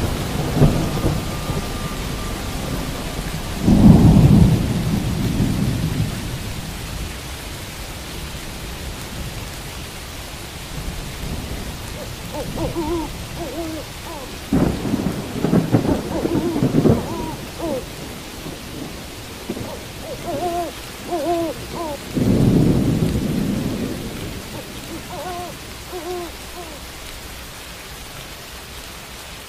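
Steady rain with several peals of thunder, the loudest about four seconds in and others in the middle and about two-thirds of the way through. An owl hoots in short runs of notes three times in the second half.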